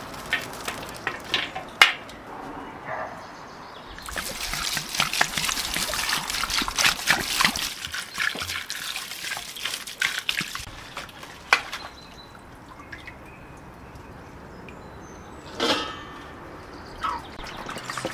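Green peppers and tomatoes knocking as they tip into a copper pan. Then water is poured from a clay jug over the vegetables in the pan for about six seconds to wash them, and stops suddenly. A few single knocks follow.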